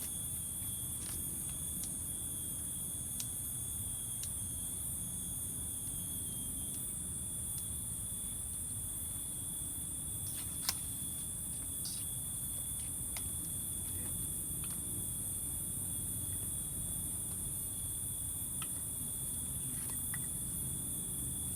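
Steady, high-pitched chorus of insects, with a second thinner constant trill lower down. Scattered faint clicks and ticks break in now and then, the sharpest about ten seconds in.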